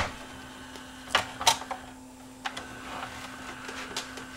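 Clicks as a CD-R goes onto the tray of an open Panasonic CD player. From about two and a half seconds in, a steady high whine as the tray-loading mechanism runs, over a low steady hum. The loading belt is worn and needs replacing.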